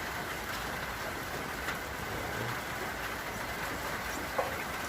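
Steady rain falling, mixed with the hiss of traffic on a wet street, with a few scattered drip ticks and one sharper tick near the end.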